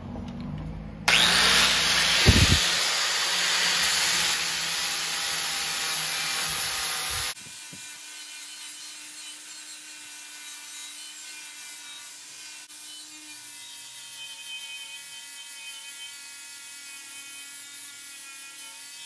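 Electric angle grinder with a 120-grit flap disc sanding rust off a carbon steel plow disc wok: a loud, steady grinding hiss starting about a second in, then dropping suddenly a little after the middle to a much quieter steady whine with a few steady tones.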